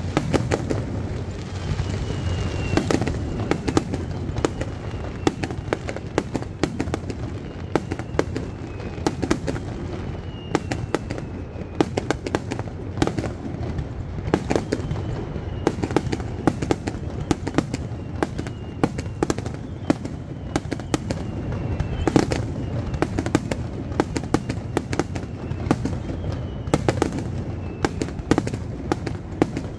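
Fireworks finale barrage: aerial shells bursting in rapid, overlapping bangs, several a second, over a continuous low rumble. Faint falling whistles come through every couple of seconds.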